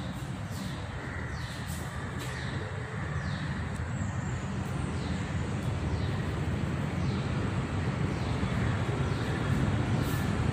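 Steady low mechanical rumble, like a vehicle engine in the background, slowly growing louder.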